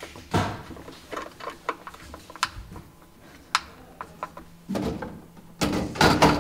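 Light clicks and knocks of a hand screwdriver at the screws of a metal outlet plate in a walnut desk, then, near the end, two louder stretches of scraping and rubbing as a dovetailed walnut drawer box is handled.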